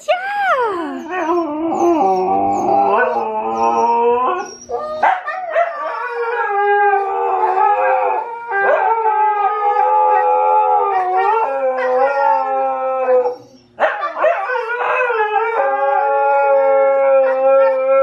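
Siberian husky howling in long drawn-out notes that glide and waver in pitch, with a short break about 13 seconds in.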